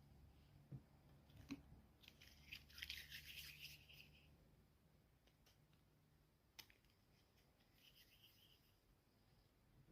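Faint handling of craft materials: a few sharp clicks and short bursts of crisp, high-pitched crackly noise, the loudest stretch about two to four seconds in, over a low steady hum.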